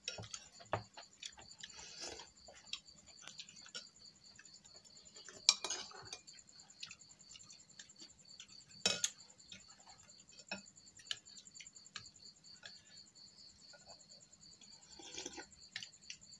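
Metal spoons and chopsticks clinking and scraping against ceramic porridge bowls as people eat, with a few sharper clinks about five and a half and nine seconds in. A faint steady high trill runs underneath.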